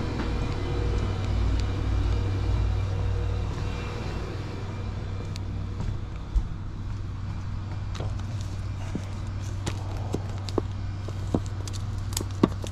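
Steady low mechanical hum, with a handful of sharp clicks and knocks in the second half.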